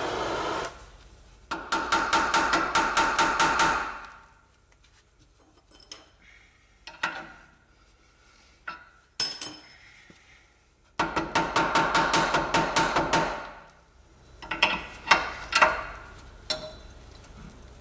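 Impact wrench hammering rapidly at the seized nut of a front suspension steering link joint, in two bursts of two to three seconds each, with scattered metal clinks and knocks between them. The burst comes just as the bolt is starting to strip.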